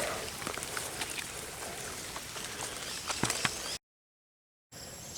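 Outdoor background noise with a few faint clicks and knocks, broken by a moment of dead silence, after which crickets start chirping steadily.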